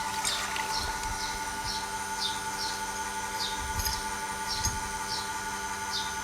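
A small bird chirping over and over, short falling chirps at uneven intervals of about two a second, over a steady hum.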